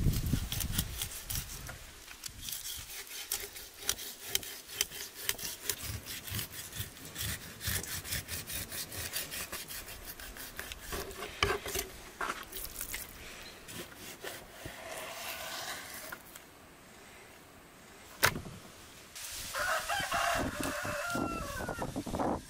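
Knife filleting a whole salmon on a wooden board: a rapid crackle of small clicks as the blade saws along the backbone and through the rib bones, thinning out after about thirteen seconds. A chicken calls twice in the background, about midway and again near the end, the second call the longer.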